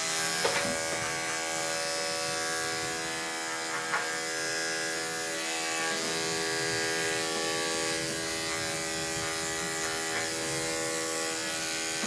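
Corded electric dog grooming clippers running with a steady buzz as they shave heavily matted ear hair. Two light knocks sound under the buzz, about half a second and four seconds in.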